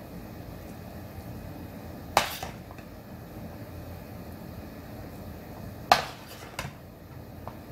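A serving spoon clinking against the cookware while mashed potatoes are scooped from a saucepan and dropped into a cast-iron skillet: two sharp clinks about two and six seconds in, with a lighter one soon after the second, over a steady low background noise.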